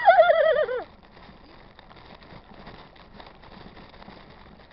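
A horse whinnying once: a quavering call about a second long that falls in pitch.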